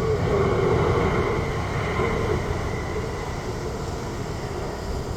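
Jet airliner engines: a steady rumble with a faint whine, slowly fading.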